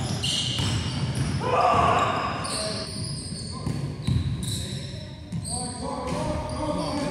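A basketball bouncing on a gym floor during play, with several short high sneaker squeaks on the court and players' voices in the background.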